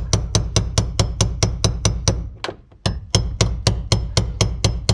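Hammer blows on a tool set against the teeth of a fuel-pump lock ring on a fuel tank, driving the ring counterclockwise to loosen it. The sharp, even knocks come about five a second, with a brief pause a little past two seconds in.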